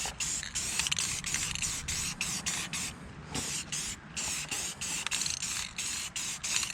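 Aerosol spray can of paint hissing in many short, rapid spurts, coating the freshly welded steel to keep surface rust off.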